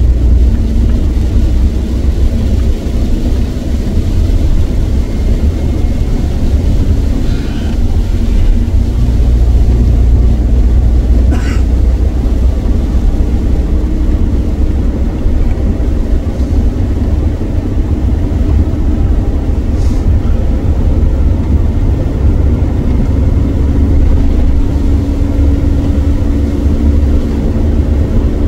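Car driving on a wet motorway, heard from inside the cabin: a steady low rumble of engine and tyres with the hiss of water spray off the road. A couple of brief ticks sound partway through.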